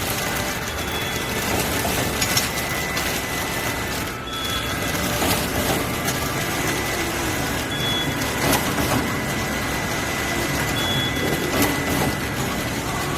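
Servo-driven horizontal packaging machine running, a steady mechanical hum with a faint steady whine, and a sharp click and a short high beep-like tone each recurring about every three seconds as it cycles.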